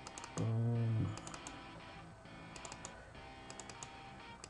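Quick clusters of two to four small, sharp computer clicks, from keyboard and mouse work while editing nodes, over faint background music.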